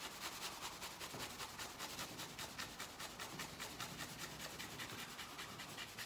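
Cloth scrubbing metal polish back and forth over a tarnished brass door handle: a quiet, rapid, even rubbing of several strokes a second.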